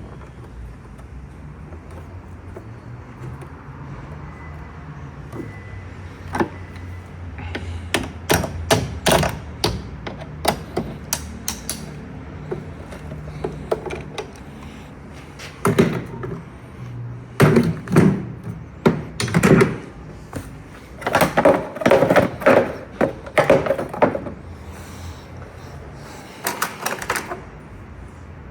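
Clusters of short clicks and knocks from a wrench and hand tools being worked on tight nuts on the car, coming in bursts with pauses between them.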